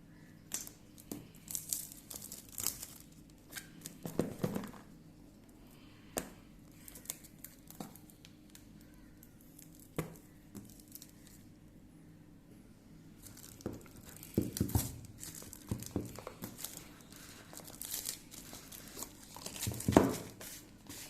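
Plastic wrap and box packaging crinkling and tearing in irregular bursts as a smartphone box is opened, with a few sharp clicks and the loudest rustle near the end.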